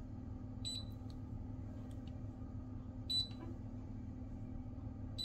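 Short, high-pitched electronic beep sounding three times, about two seconds apart, over a low steady hum.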